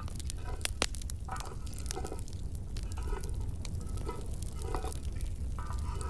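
Chestnuts roasting on a perforated metal pan over a fire: irregular sharp crackles and pops.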